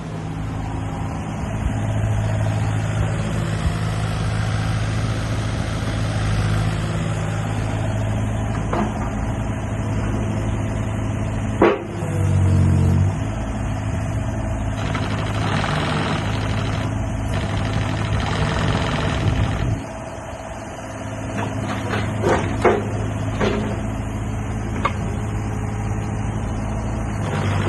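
Takeuchi TB228 mini excavator's diesel engine running steadily, with a short rise in level about twelve seconds in and a few sharp knocks in the second half.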